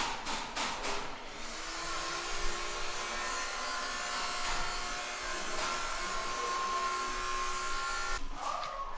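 A few sharp knocks, then a small electric motor, such as a power tool, whines steadily for about seven seconds and cuts off abruptly near the end.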